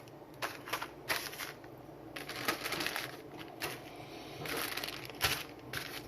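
Fireworks packaging being handled: crinkling and rustling with scattered light clicks and knocks, irregular and unhurried.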